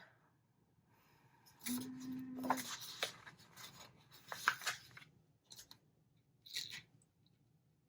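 Paper crafting sounds: sticker sheets and washi tape being handled, crackling and rustling for about three seconds, then two short rustles near the end.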